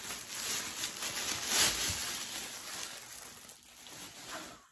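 Clear plastic wrapping bag crinkling and rustling as a backpack is pulled out of it, loudest about a second and a half in and dying down near the end.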